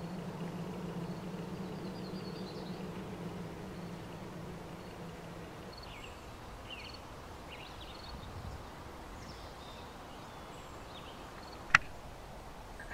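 Garden ambience with scattered short bird chirps and a low steady hum that fades out about six seconds in, then a single sharp click near the end, the loudest sound.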